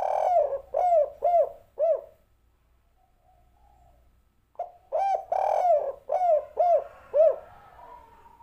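Spotted dove cooing in two phrases a couple of seconds apart, each a run of several short notes that rise and fall, one drawn out longer in the middle. This is the tekukur's 'kuk 3' style of call, in a deep, mature voice.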